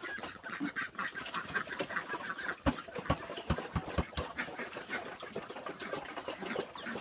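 Poultry in a pen making many short, high calls and chirps. About three seconds in comes a quick run of knocks as the bucket and feed are handled against the wooden trough.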